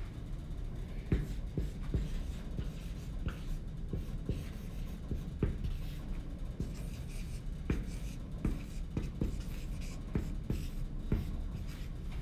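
Dry-erase marker writing on a whiteboard: irregular short taps and strokes of the felt tip as letters are drawn, over a steady low hum.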